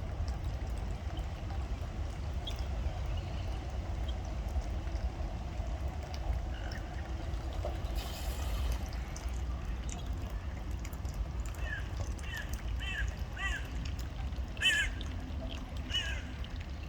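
Ducks quacking: a run of short quacks, about two a second, fills the second half, over a steady low background rumble. About eight seconds in there is a brief rush of noise.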